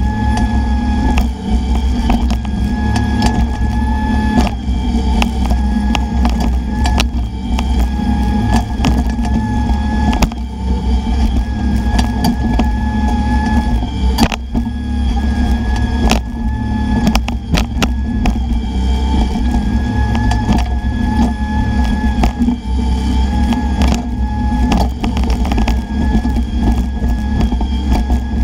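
Bobcat E10 mini excavator's diesel engine running under load while digging, with a hydraulic whine that comes and goes every few seconds as the controls are worked. Scattered sharp knocks and clanks run through it.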